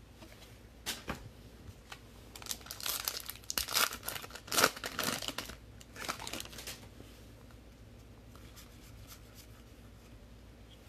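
Trading-card pack wrapper crinkling and tearing as it is ripped open, in a run of crackles over a few seconds that then stops.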